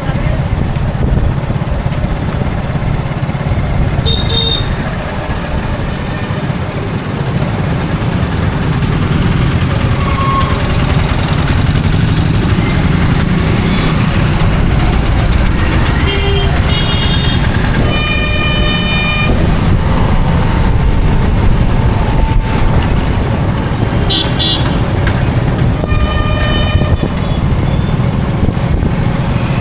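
Busy road traffic: a steady rumble of passing engines and tyres, with vehicle horns honking several times. The longest horn blast comes a little past the middle, and shorter toots are scattered before and after it.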